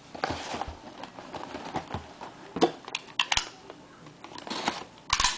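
Cardboard trading-card box and its packs being opened and handled: scattered rustles, taps and small clicks, with a louder knock near the end.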